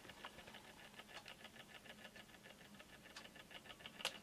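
Faint, fast, even ticking of a JVC Videosphere flip clock's motor-driven mechanism running, with a sharp click near the end as the minute card flips over.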